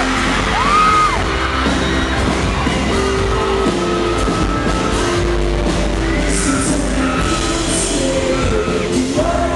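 Live rock band playing loudly, with electric guitars, drums and cymbals. A singer holds notes in the first second or so.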